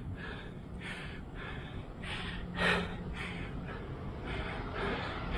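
A cyclist panting hard, about two breaths a second, with one louder gasp near the middle: out of breath from pedalling up a steep climb.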